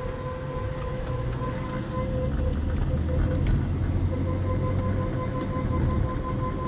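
Seat Arosa brakes giving a steady, mid-pitched tone with a fainter overtone, over the low rumble of the moving car. The tone falters about three seconds in, then carries on.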